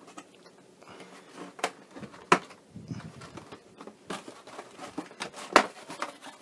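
Stiff clear plastic clamshell packaging being handled: crinkling rustles broken by a few sharp plastic clicks and snaps, the loudest about two and a half and five and a half seconds in.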